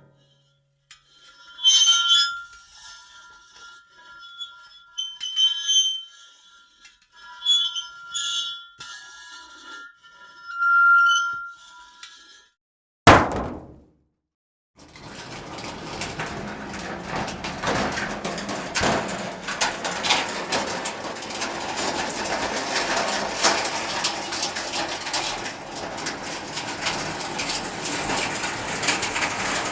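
Metal sound effects: a series of ringing metal strikes, each leaving a clear lingering ring, then one sharp hit about 13 s in. After a short pause comes a long, continuous, dense metallic clatter.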